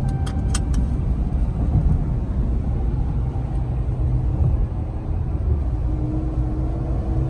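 Road and engine noise inside a moving vehicle's cabin, a steady low rumble, with a few short clicks in the first second. Near the end the engine note begins to rise as the vehicle speeds up.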